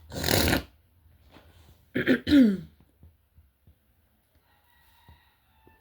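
A woman with a cold and sore throat coughing: one harsh cough at the start, then about two seconds later a louder double cough ending in a falling, voiced sound.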